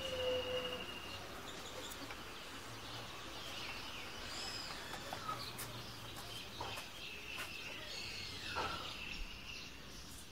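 Outdoor ambience of birds chirping and whistling now and then over a steady low background noise.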